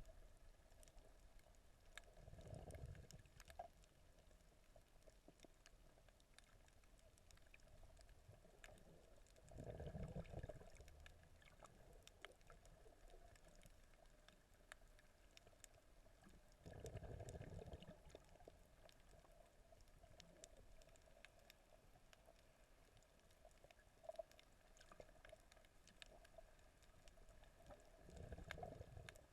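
Faint, muffled underwater water sound while snorkelling: a steady fine crackle of tiny clicks, with four louder swells of water noise, each about a second long and roughly seven seconds apart.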